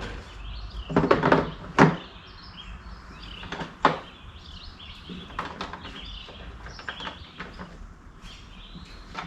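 A few sharp knocks and clatters, about a second in, near two seconds and near four seconds, with lighter ticks after them, over birds chirping and a low steady background rumble.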